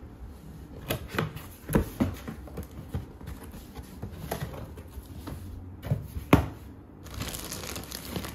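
A cardboard box being opened by hand: scattered scrapes and knocks of the cardboard as the tab is pulled and the flaps are folded back, then a soft rustle of plastic wrapping near the end.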